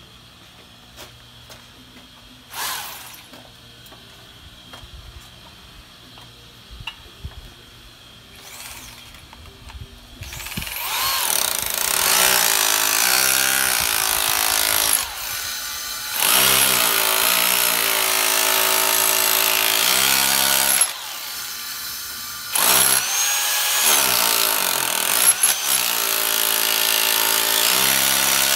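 Bosch GBH2-28L corded SDS-Plus rotary hammer in hammer-only mode, driving a flat chisel into poured concrete. It starts about a third of the way in and runs in three long bursts with short pauses between.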